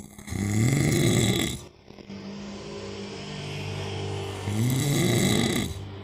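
A man snoring loudly in his sleep: two long snores about four seconds apart, each rising slightly in pitch as it starts, with softer breathing between them.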